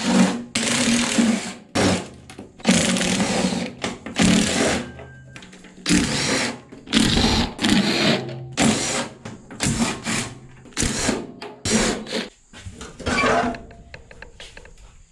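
Cordless impact driver running in about a dozen short bursts, each a second or less, backing out the bolts that hold a sheet-metal cover.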